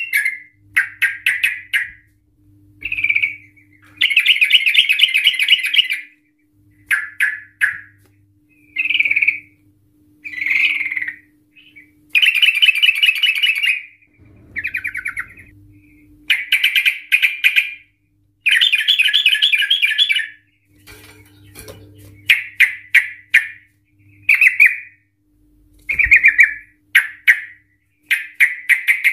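Yellow-vented bulbul singing: a run of loud, bubbly chirping phrases. Several are drawn out into fast rattling trills of about two seconds, the long 'ropel' song that bird keepers prize.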